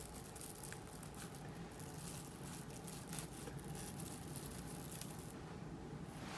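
Self-grip (Velcro) hair rollers being pulled out of tightly coiled type 4 hair: a dense crackling, tearing sound as the hooked roller surface rips free of strands it is stuck in, thinning out about five seconds in.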